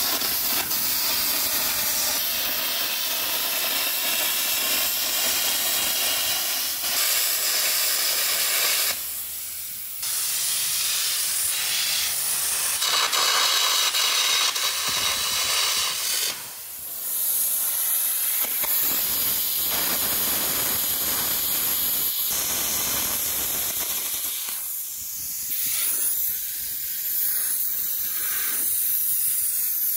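Air carbon arc gouging on heavy steel plate: a loud, steady hiss of the compressed-air jet over the crackle of the arc as the carbon electrode cuts out the worn mouldboard. It stops briefly a few times.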